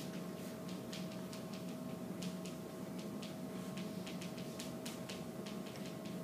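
Chalk writing on a chalkboard: many short, irregular taps and scratches as letters are written, over a steady room hum.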